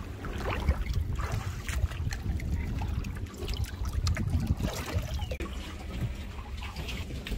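Seawater splashing and trickling around a boat's stern as someone wades up and climbs aboard by the stern ladder, with scattered light knocks over a low rumble.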